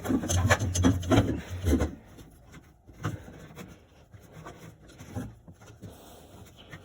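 Handling noises: a run of rubbing and scraping strokes for about two seconds, then quieter scattered clicks and light knocks.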